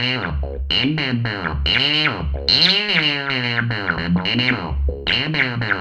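Arturia MicroFreak synthesizer voicing alien speech: buzzing, distorted, modulated tones broken into short syllable-like phrases whose pitch swoops up and down.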